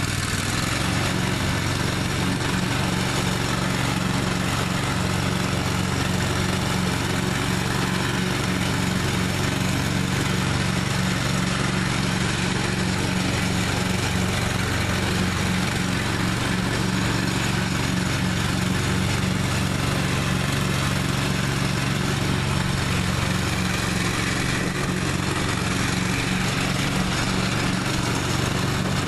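1998 Husqvarna riding lawn mower engine running steadily under load while mowing with the deck engaged, without the up-and-down surging it shows when the blades are off.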